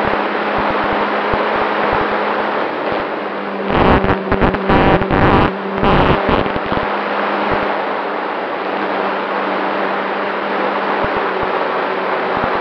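Onboard audio of a radio-controlled Cessna 188 model in flight: its motor drones steadily under a rush of air. From about four to seven seconds in, wind buffets the microphone in loud, choppy blasts, then the steady drone carries on.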